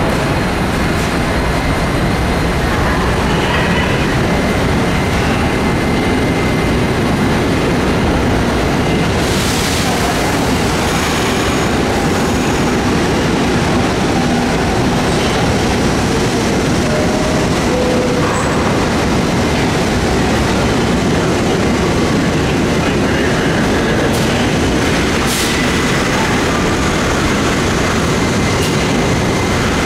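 Subway train noise in an underground station: a steady, loud rumble with a faint high wheel squeal at times and a couple of short hisses.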